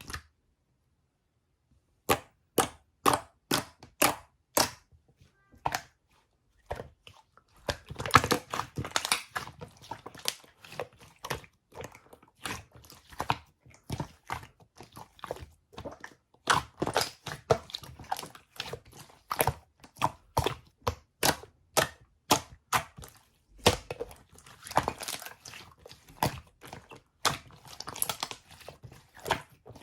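Green-tea slime being played with: sharp popping clicks about two a second, then from about eight seconds in a denser run of pops and crackles as the slime is squeezed and stretched.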